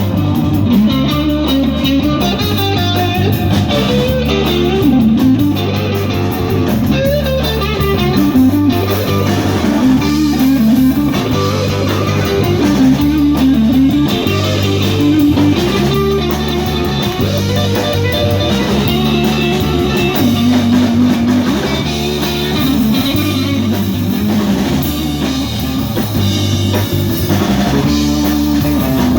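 Live band playing an instrumental passage: a guitar picks a wandering lead line over a steady, repeating bass pattern and a drum kit.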